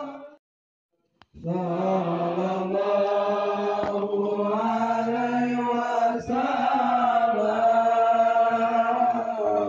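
Salawat (blessings on the Prophet Muhammad) chanted in long, drawn-out melodic lines. The sound drops out for about a second near the start, then the chant runs on with held, slowly bending notes.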